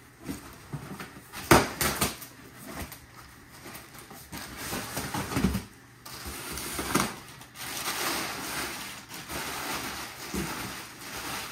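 Cardboard box flaps being pulled open and crumpled packing paper rustling as hands dig through it, with a sharp knock about a second and a half in. The rustling is denser and louder in the second half.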